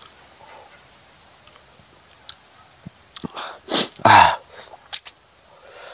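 A man's short, forceful burst of breath and voice through the open mouth about four seconds in, amid small mouth and chewing noises while eating; two sharp clicks of the lips or tongue follow about a second later.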